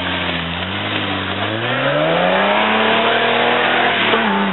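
Off-road four-wheel-drive competition truck's engine revving up over the first couple of seconds, holding high revs, then easing off slightly near the end, with its tyres churning through mud.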